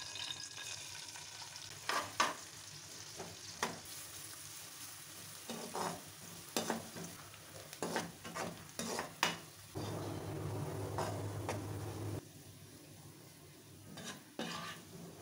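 Sliced onions sizzling in hot oil in a non-stick wok, frying down toward crisp golden beresta, with the scrapes and taps of a metal slotted spatula stirring them several times. A steadier low hum comes in for about two seconds past the middle.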